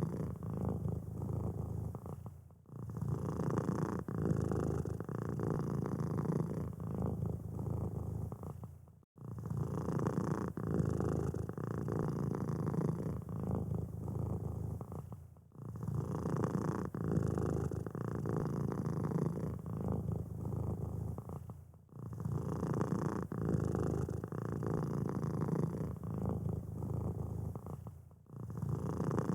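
Domestic cat purring steadily, a low rough buzz that breaks off briefly about every six seconds.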